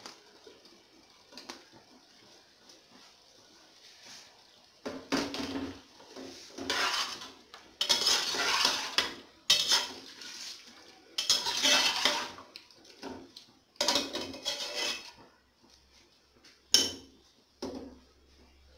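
Metal slotted spatula scraping and stirring chicken and chopped tomatoes in an aluminium pressure-cooker pot. It comes in repeated scraping strokes from about five seconds in to about fifteen seconds, followed by one sharp clack of metal on the pot near the end.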